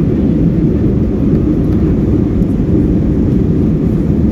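Steady low rumble of an Airbus A321 airliner heard inside the passenger cabin: engine and airflow noise, even in level, with no distinct knocks or changes.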